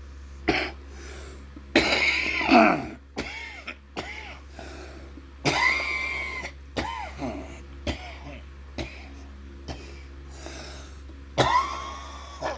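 A man coughing and clearing his throat several times between short catches of breath. The loudest sudden coughs come about two seconds in, about six seconds in and near the end. He has the hiccups.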